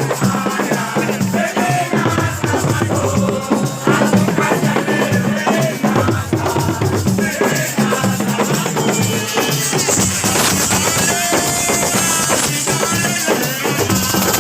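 Drum-led music with rattles and voices singing, played loud and without a break.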